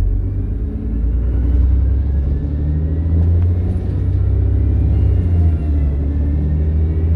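Dennis Trident double-decker bus under acceleration: a heavy, steady low engine rumble with faint whines that rise in pitch as the bus gathers speed. The rumble dips briefly about five and a half seconds in.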